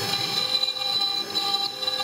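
CNC-6090 router milling sandstone under a water coolant jet: the spindle runs with a steady high whine over the rough grinding of the end mill cutting the wet stone.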